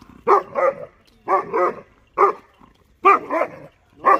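A 6.5-month-old German shepherd puppy barking repeatedly at passing buffaloes, about eight sharp barks, many in quick pairs.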